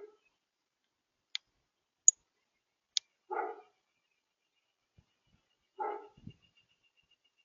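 A dog barking: two single barks a couple of seconds apart. Short, sharp high chip notes come in between.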